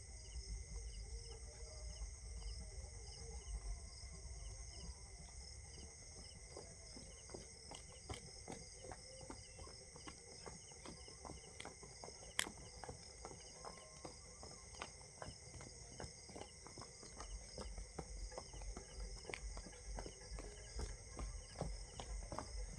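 Faint steady insect chorus, crickets chirping in a pulsing pattern, over scattered light taps and thumps, with one sharp click about twelve seconds in.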